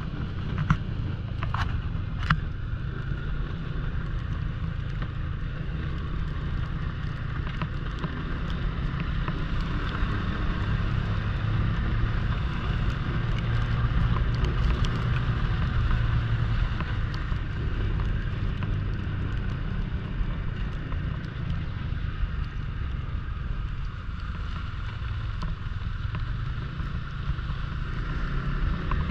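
Snowmobile engine and track running steadily while the sled rides along a snowy trail, getting a little louder in the middle, with a few light clicks near the start.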